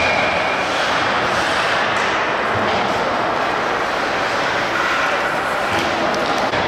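Steady, even din of an ice hockey game in a rink, with no distinct event standing out.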